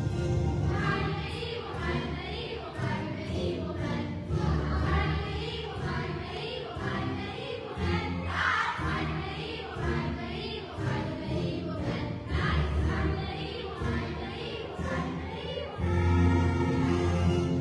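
A choir of children singing together with musical accompaniment, growing louder near the end.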